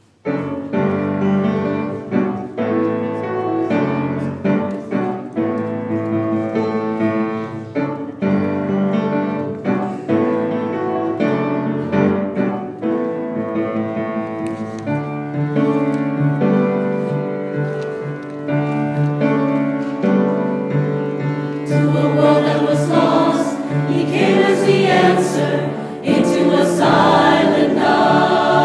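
Instrumental introduction of sustained chords with regular note attacks, likely piano-led accompaniment. About twenty-two seconds in, a mixed choir comes in singing over it, fuller and a little louder.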